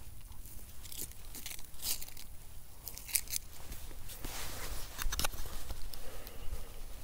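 Irregular dry crunches and scrapes of a stick stirring through charcoal and ash at a campfire spot, then footsteps on dry fallen leaves near the end.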